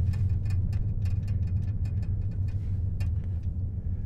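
Car rolling slowly along a road, heard from inside through the open side window: a steady low rumble of engine and tyres. Over it runs a quick patter of faint, sharp ticks, about five a second, thinning out near the end.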